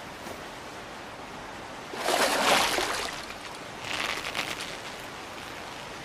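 Steady rushing hiss of outdoor ambience, with two louder noisy rushes about two seconds in and again about four seconds in, the first the loudest.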